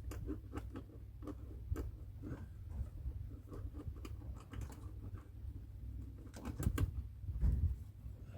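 Irregular small clicks and knocks of a plastic wiring connector being handled and worked onto a replacement heater blower motor, a tight fit, with a few louder knocks near the end over a low steady hum.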